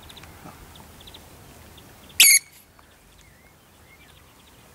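One short, loud, high-pitched squeak about two seconds in, over a faint background.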